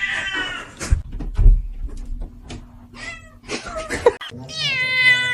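A domestic cat meowing several times, a short falling meow at the start and a longer one near the end, with two loud thumps about a second in.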